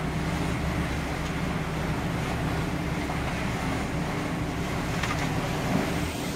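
Steady low hum of a ship under way, with wind and rushing water underneath.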